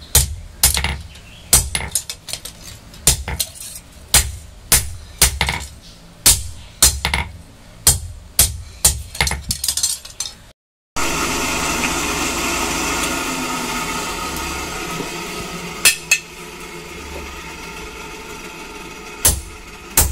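Hand hammer beating a red-hot leaf-spring steel blade on a steel anvil block, sharp ringing blows at about two a second. After a short break, a steady humming sound with several tones takes over, then a few more single hammer blows.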